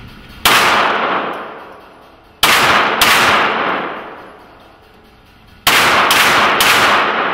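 Handgun shots fired at an indoor shooting range, very loud, each followed by a long echoing ring-out in the enclosed range. There is one shot, then a pair about half a second apart, then three quick shots near the end.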